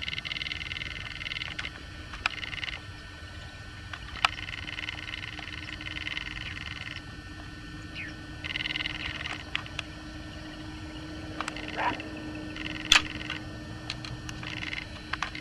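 A high-pitched chorus of small calling animals that comes and goes in stretches of a few seconds, over a faint steady hum. A few sharp clicks or snaps are scattered through it, the loudest near the end.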